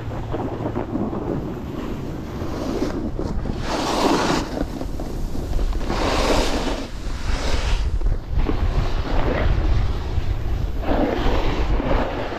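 Wind buffeting the microphone of a camera moving fast down a ski slope, a steady low rumble, with about four surges of hissing scrape as edges carve across packed snow.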